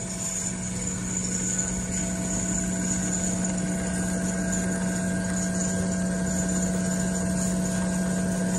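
Large-format CNC sewing machine running: a steady, even machine hum with several fixed tones.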